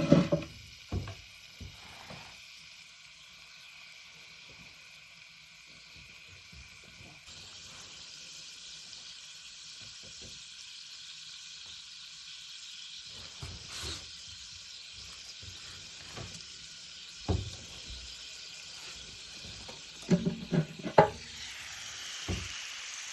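Meat sizzling steadily as it grills over the fire in a chiminea, with a few short knocks. Insects chirp in the background.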